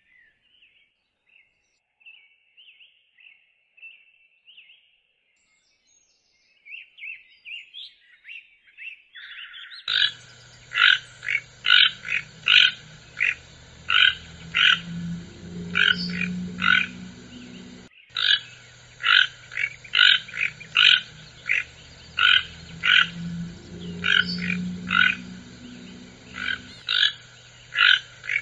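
Toco toucan calling. After faint bird chirps at first, a loud series of short, repeated calls starts about ten seconds in, at about two a second, with a brief break midway.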